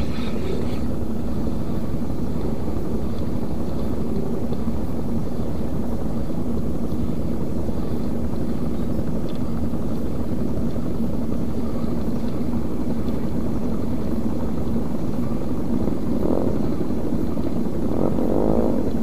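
A steady, low motor drone with a constant hum, even in level throughout.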